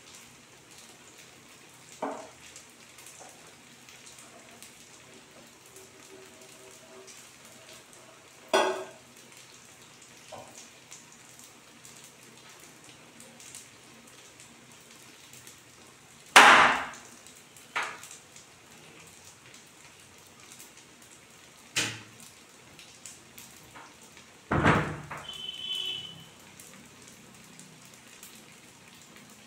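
Banana fritters deep-frying in hot oil, a steady fine crackling sizzle. It is broken by a few sharp knocks or clatters, the loudest a little past halfway through.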